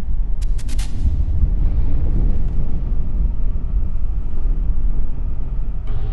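Engine with a glass cylinder head running with a steady low rumble, a quick run of sharp clicks about half a second in.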